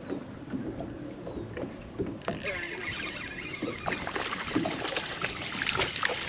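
Water lapping and slapping against the hull of a small fishing boat, with wind on the microphone. About two seconds in it turns louder and brighter, full of quick clicks and splashes.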